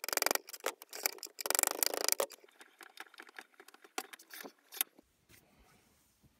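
Metal tapping and clinking on a Record No. 5 bench vise as it is reassembled: a hammer taps a pin into the steel main screw in quick clusters of sharp clicks. Around four seconds in come a few separate clacks as the vise handle is turned and slides against its end stops.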